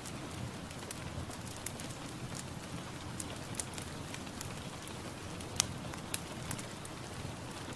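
Steady rain hiss with scattered single drops ticking sharply on a hard surface, the loudest drip a little past halfway.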